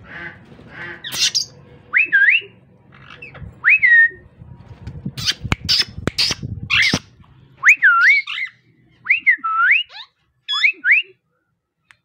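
Plum-headed parakeets giving a run of shrill whistled calls, each a quick up-and-down swoop in pitch, starting about two seconds in and coming in quick clusters toward the end. A few knocks and rustles sound in the middle.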